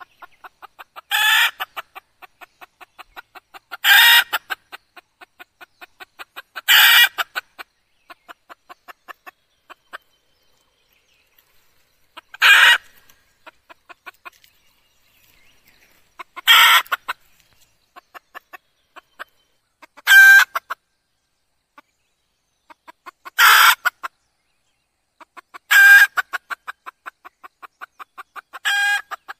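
Red junglefowl hen calling: about nine loud, harsh calls a few seconds apart, with rows of soft, quick clucks in between.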